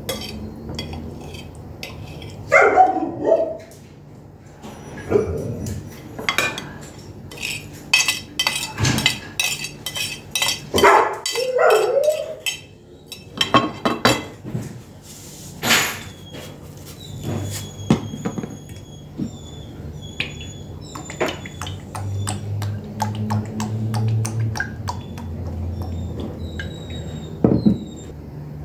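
Irregular clinks and knocks of cutlery and dishes, coming in quick runs at times, with a few louder scraping or handling sounds. Faint short high chirps come in the second half.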